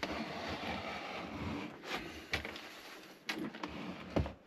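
Handling noise from a nitro RC car being turned around and moved on a workbench: a rustling scrape for the first couple of seconds, then a few light knocks.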